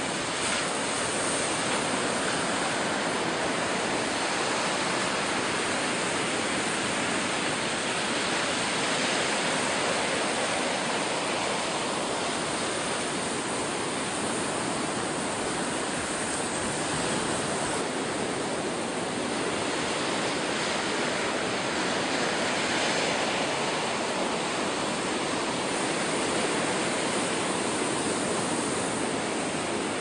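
Ocean surf washing onto the beach: a steady roar of breaking waves that swells and eases a little now and then.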